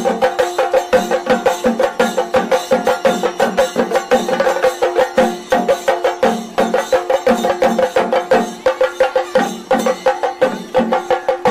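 Traditional music with fast, even percussion strikes, about six a second, over held pitched tones.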